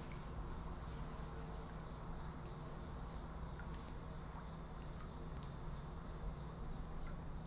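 A steady low hum with a few faint ticks scattered through it.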